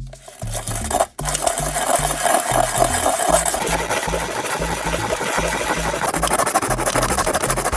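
Rapid, continuous rasping and scraping of a hand tool working a material, over background music with a steady bass line. The scraping starts about half a second in and pauses briefly just after one second.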